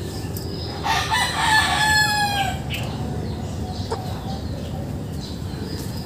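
A rooster crows once, starting about a second in. The call lasts under two seconds and falls in pitch at the end, over a steady low background noise.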